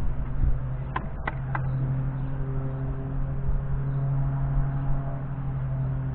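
A steady low machine hum, with three sharp clicks or knocks in quick succession about a second in.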